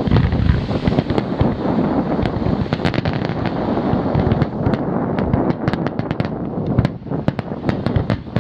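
Fireworks display: aerial shells bursting and crackling, many sharp cracks in quick succession over a continuous low rumble, easing briefly about seven seconds in.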